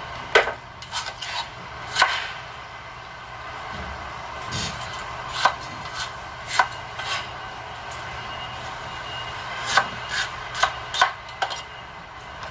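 Kitchen knife cutting a red bell pepper on a plastic cutting board: about a dozen short, sharp knocks at irregular intervals, bunched near the start and again near the end.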